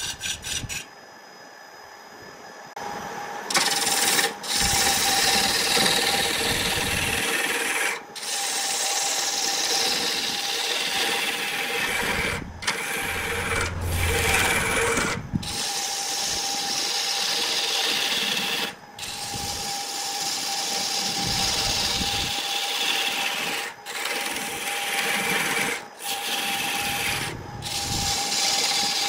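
A hand-held turning chisel cutting a spinning wooden blank on a wood lathe: a continuous scraping, shaving hiss over a steady whine, broken by short gaps every few seconds. The first few seconds are quieter before the cutting starts in earnest.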